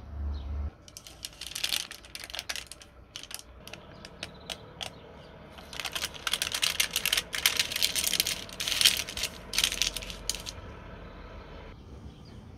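Baking paper crinkling and crackling under hands in a plastic tray: scattered quick crackles from about a second in, becoming a dense, louder run past the middle, then stopping shortly before the end.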